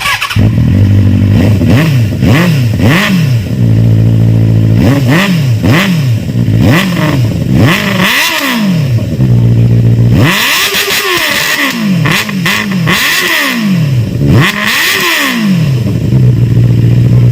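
Benelli 600i's inline four-cylinder engine, fitted with an aftermarket exhaust, started up and idling, then blipped hard about a dozen times in quick rising-and-falling revs before settling back to idle. It cuts off suddenly at the end. The exhaust sound is heavy.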